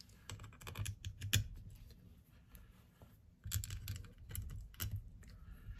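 Scattered light metallic clicks and taps of small screws being picked up and started by hand into the aluminum top cover of a Solex 34 PICT-3 carburetor.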